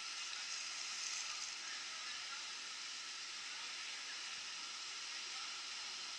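Fast white water rushing down a concrete-walled channel, a steady hiss.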